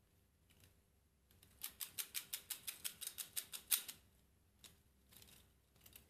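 Escapement of a 3D-printed plastic clockwork heart ticking: a quick, even run of sharp plastic clicks, about six a second. It starts a little over a second in and stops after about two and a half seconds.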